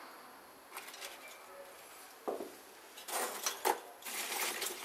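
Lump charcoal being handled in a metal barbecue grill box while it is lit. A few light clicks come first, then two rough bursts of scraping and clinking in the second half.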